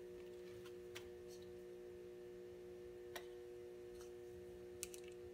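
Faint steady hum of the room with a few light clicks and taps, a quick pair near the end, as hands work the silicone radiator hose.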